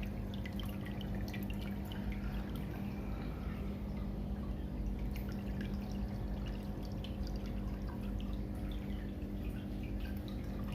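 Water pouring and splashing steadily from an aquarium waterfall outlet fed by a pump rated at 2800 litres per hour, with many small drips and splashes. A steady electric hum from the pump runs underneath.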